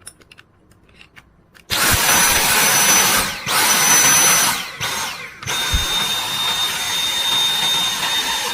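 Dyson V7 cordless vacuum's motor switching on about two seconds in with a high whine, let off and started again a few times, its pitch falling and rising back at each break. It runs normally on the freshly re-welded battery.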